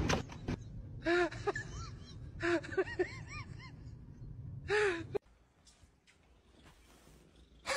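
A kitten meowing: short mews that rise and fall in pitch, one about a second in, a quick run of about four a little later, and another near five seconds.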